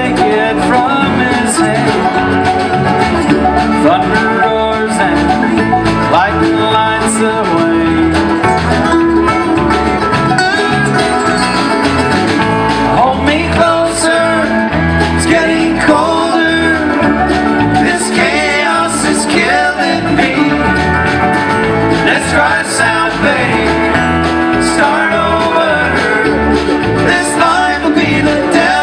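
Live bluegrass band playing, with acoustic guitar, mandolin and banjo picking together.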